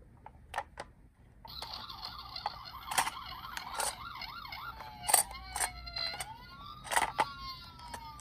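Electronic sirens of toy emergency vehicles. A fast warbling siren starts about a second and a half in, and a second siren with slow rising and falling wails joins it around the middle. Sharp plastic clicks and knocks sound throughout.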